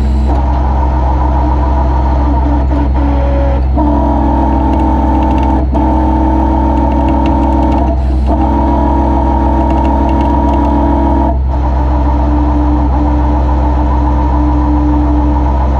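Tow truck's engine running steadily with a strong low hum, while a higher drone over it cuts out and comes back several times, as the wrecker's hydraulics are worked.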